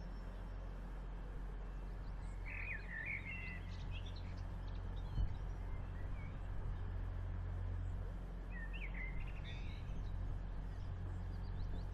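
Grand Central Class 180 Adelante diesel multiple unit standing with its engines idling, a steady low hum. Birds chirp twice over it, about two and a half and eight and a half seconds in, and there is a single short thump about five seconds in.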